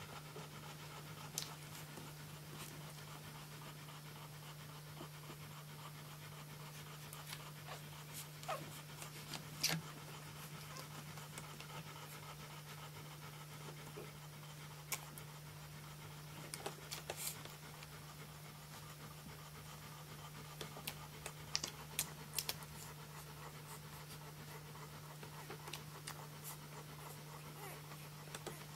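Flat-coated retriever panting steadily, under a constant low hum. Scattered soft clicks and a few short squeaks break in here and there.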